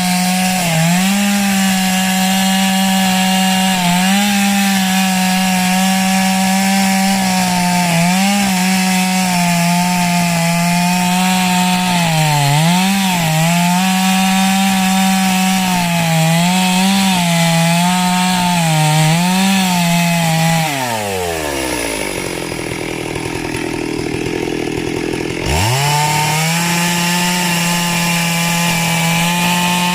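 Chainsaw running at high revs, its pitch dipping briefly several times under load in the cut. About 21 seconds in the revs fall away to idle, and some four seconds later it is throttled sharply back up to full speed.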